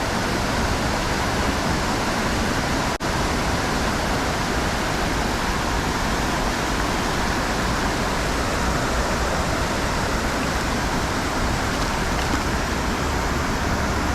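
Steady rushing of flowing creek water, broken by a momentary dropout about three seconds in.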